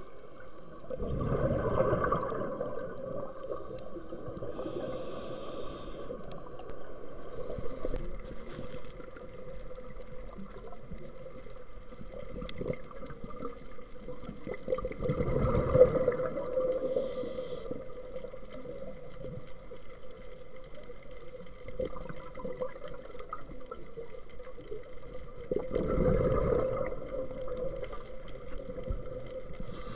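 Scuba regulator underwater: three bursts of exhaled bubbles, each a second or two long and about ten seconds apart, with brief high hisses between them over a faint steady hum.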